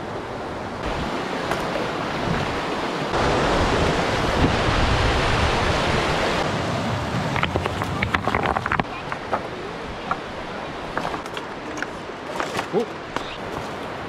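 Steady rushing of a white-water river, swelling for a few seconds, with scattered clicks of footsteps on loose rock and rustling of brush in the second half.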